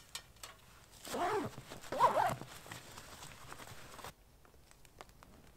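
A steel camp wood stove being handled and packed away: a few light metal clinks, then two brief squeaky scrapes about a second apart as it goes into a nylon bag.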